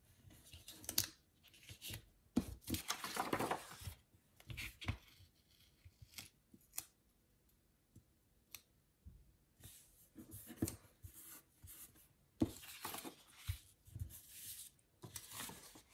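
Paper stickers and planner pages being handled: irregular rustles, crinkles and light taps as stickers are peeled and pressed down by hand, with a longer rustle about three seconds in as the planner is shifted.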